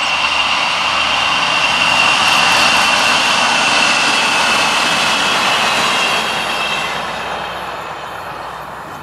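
MAN 2000-series diesel multiple unit passing close by: engine and wheel noise with a steady high whine, loudest a couple of seconds in, then fading as the railcar moves away.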